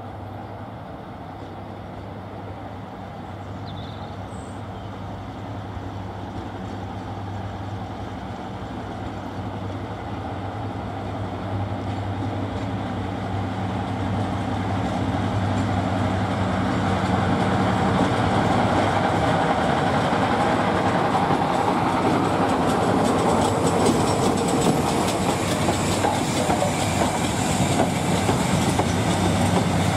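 Class 55 Deltic diesel locomotive, powered by two Napier Deltic two-stroke engines, approaching and passing with a train behind it. Its steady engine drone grows louder for most of the way in, and the clatter of wheels over the rails builds as it draws level.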